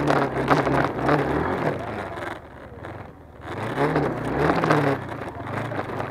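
Motorcycle engine revving in two bursts on an off-road climb. The first burst is at the start and the second about four seconds in, each rising and falling in pitch, with a quieter dip between them.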